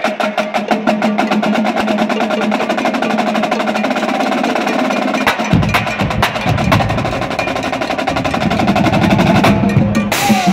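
Drumline of snare drums, bass drums and cymbals playing a fast cadence of rapid, even stick strokes. The bass drums come in about halfway through, and there is a crash near the end.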